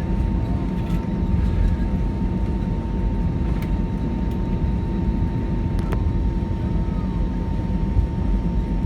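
Cabin noise inside an Airbus A319 taxiing: a steady low rumble from the CFM56 engines at low thrust, with a constant high-pitched whine and two faint clicks around the middle.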